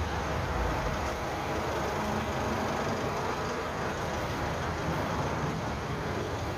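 Steady city street noise: traffic running along the road with a continuous low rumble.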